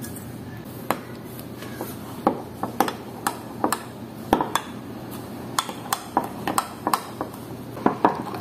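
Dishes and utensils clinking and clattering: a string of irregular sharp clinks with a short ring to each, thicker in the second half.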